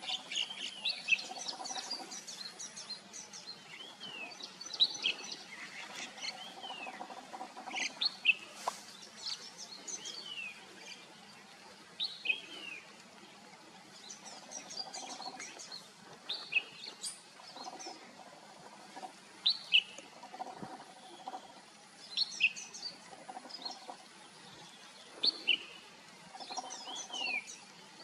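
Red-whiskered bulbul singing: short phrases of quick, sweeping whistled notes, repeated every second or two with brief gaps between them.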